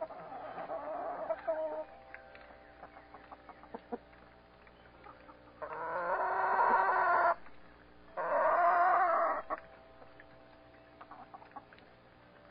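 Backyard chickens: soft clucking at the start, then two loud, drawn-out calls in the middle, a second or so apart.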